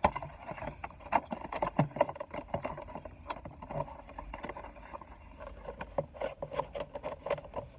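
A person chewing a mouthful of food close to the microphone: a run of irregular small wet mouth clicks and smacks.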